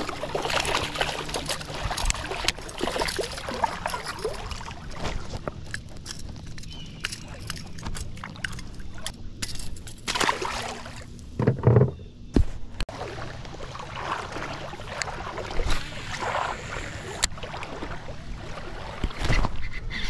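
Water sloshing and lapping against a kayak hull, with scattered knocks and clicks from gear being handled in the boat and one louder thump about halfway through.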